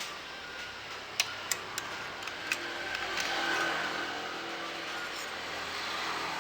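Sharp metal clicks from parts being handled during motorcycle clutch reassembly: four quick clicks within about a second and a half, then a fainter one, over a steady background hiss.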